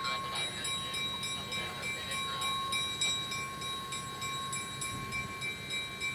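Diesel locomotive engine running steadily as the locomotive approaches slowly down the track.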